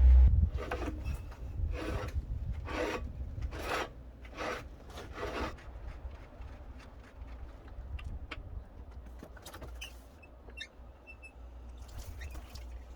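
A run of about eight rough rubbing or scraping strokes, roughly two a second, over a steady low rumble. After about five seconds the strokes stop, and what follows is quieter, with scattered light clicks and a few brief high, thin notes.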